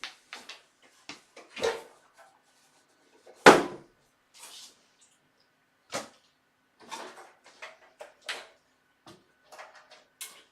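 Scattered clicks, taps and knocks of a desktop PC case and its parts being handled during disassembly, with one louder knock about three and a half seconds in.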